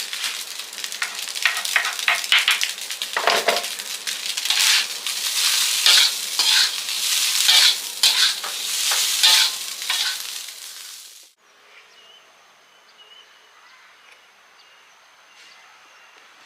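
Food frying in a pan, a dense crackling sizzle with scraping and clicking from stirring. It cuts off suddenly about eleven seconds in, leaving only a quiet background.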